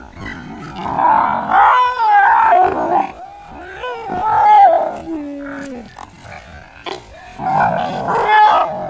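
A dog snarling and growling, with rough cries in several loud stretches and a lower falling cry about five seconds in, as it attacks a fake tiger.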